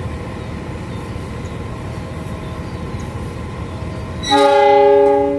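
Diesel locomotive running with a steady low rumble, then its air horn sounds once about four seconds in: a chord of several notes held for about a second and a half before fading.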